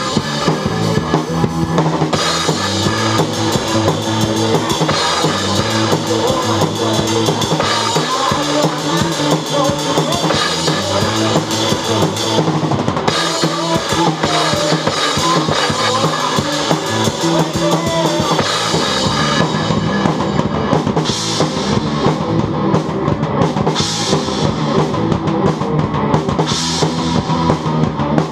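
Acoustic drum kit played along to a rock song recording: a driving beat of bass drum, snare and cymbals over the song's bass and guitar. About two-thirds through, the busy cymbal pattern gives way to separate crash hits every two to three seconds.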